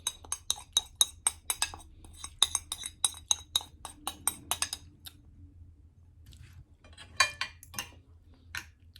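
Spoon and fork clinking against a plate, mixing rice with dinuguan sauce: quick repeated clinks, about four a second, for the first five seconds, then a few scrapes on the plate later on.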